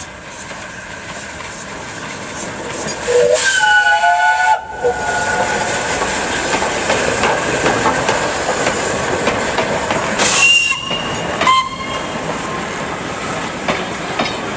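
Steam-hauled train of coaches rolling along the platform, wheels clattering over the rail joints. A loud shrill tone sounds for about a second and a half around three seconds in, and brief high metallic squeals come near ten and eleven seconds.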